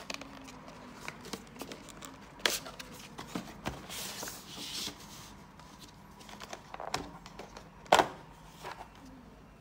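Cardboard packaging of a power bank being handled and opened: scattered light taps and clicks, a short scraping hiss about four seconds in as the cardboard sleeve slides off the box, and one sharp tap near eight seconds.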